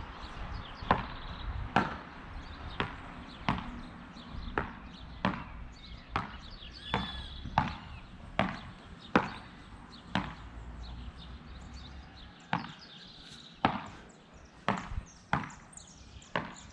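Beach tennis racquets striking the ball in a quick volley rally: sharp hits nearly once a second, about eighteen in all, with a short break about twelve seconds in.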